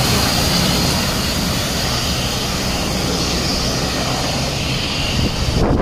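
Biman Bangladesh Dash 8-400 turboprop airliner taxiing, its engines and propellers running steadily with a high whine. The whine cuts off abruptly just before the end.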